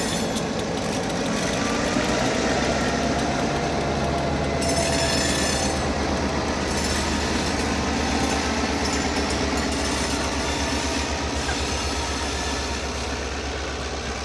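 Ontario Southland Railway diesel locomotives passing over a road crossing. Their engines run with a deep, steady rumble that grows stronger a couple of seconds in.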